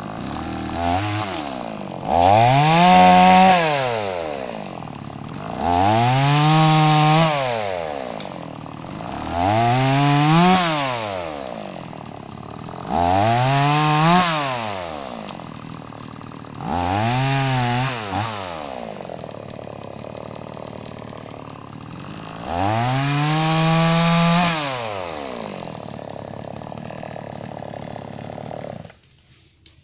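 Gas chainsaw bucking a red oak log into blocks. It is revved up for six cuts, each held at full throttle for a second or two, and drops back to idle between them. The sound falls away abruptly just before the end.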